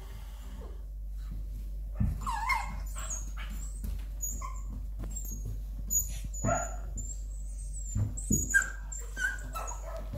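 Puppies yipping, squealing and play-growling as they wrestle with a bigger dog, in short scattered bursts, with a few soft thumps of bodies on the floor.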